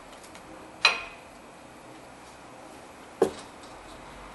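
Two sharp metallic clicks about two and a half seconds apart, each with a short ring: a brake pad's steel backing plate being seated into the clips of the caliper mounting bracket.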